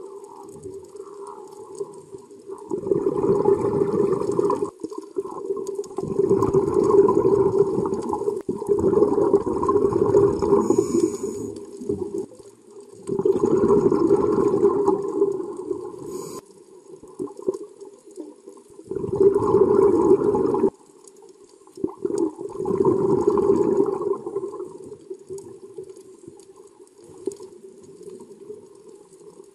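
Scuba diver's regulator exhaust heard underwater: bursts of exhaled bubbles, about six breaths, each two to three seconds long, with a steady hum in the gaps between them.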